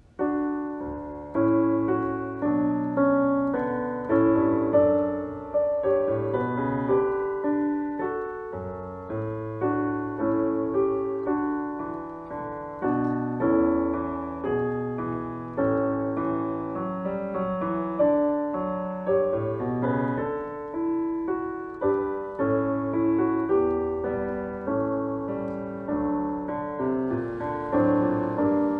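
Solo piano playing a slow, gentle prelude: chords and melody notes struck and left to fade.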